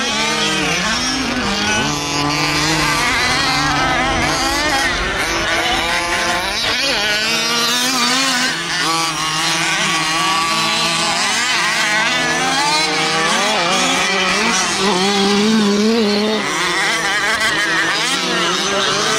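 Several fifth-scale RC buggies' small two-stroke gas engines revving together. Their overlapping buzzing pitches rise and fall as the cars accelerate and ease off.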